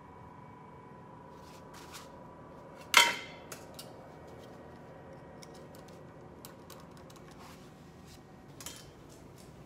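Metal hand tool working the wheel nut on an aircraft main-wheel axle: one loud metallic clank with a short ring about three seconds in, then a few light clicks.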